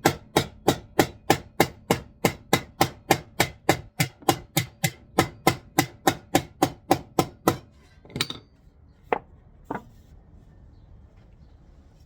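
A small sheet of roofing tin being struck over and over to dent and distress it, in a fast, even run of sharp metallic blows at about three or four a second. The blows stop about eight seconds in, and three single knocks follow.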